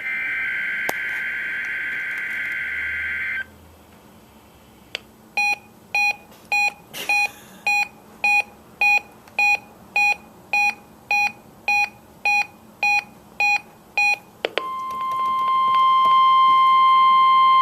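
NOAA Weather Radio test signal heard through a weather alert radio. It starts with a burst of the SAME digital header, a buzzing data sound that cuts off about three and a half seconds in. After a short gap come short electronic beeps, about two a second, for roughly nine seconds, then from about fifteen seconds in the steady, loud 1050 Hz warning alarm tone.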